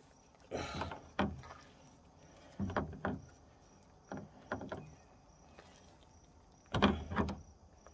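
A gray squirrel's hide being peeled back off the carcass by hand in short, hard pulls: about six separate bursts of tearing, rubbing noise, the loudest near the end. The hide is tough and resists.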